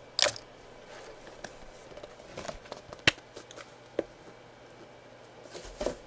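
A cardboard box being picked up and handled: a loud rustle or scrape just after the start, scattered small clicks and knocks, a sharp click about three seconds in, and another rustle near the end.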